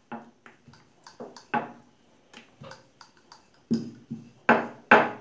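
Wooden rolling pin knocking and rolling on a marble counter as a small round of momo dough is rolled out, two or three short clacks a second, louder in the second half.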